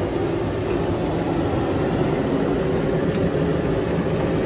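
Commercial kitchen range-hood exhaust fan running with a steady drone.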